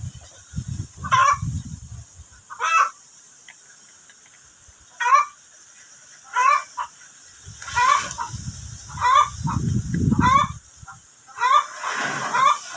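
A bird calling over and over, a short call about every second and a half. Low rumbling noise comes in about a second in and again near the end.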